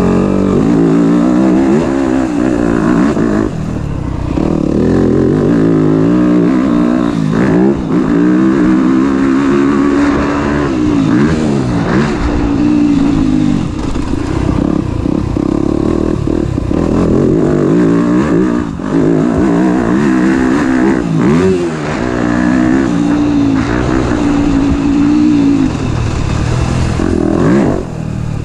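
Yamaha YZ250F's 250 cc four-stroke single-cylinder engine, freshly run in, revving hard and dropping again over and over as the bike is ridden through the gears, with brief throttle-offs every few seconds.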